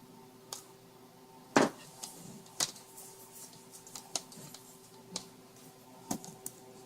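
Scattered clicks and light knocks from a multimeter and its leads being handled and set up. The sharpest click comes about a second and a half in, over a faint steady hum.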